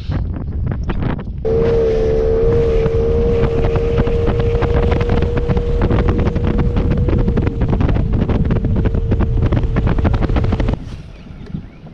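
Bass boat's outboard motor running at speed, with heavy wind on the microphone; a steady engine tone comes in about a second and a half in and cuts off suddenly near the end.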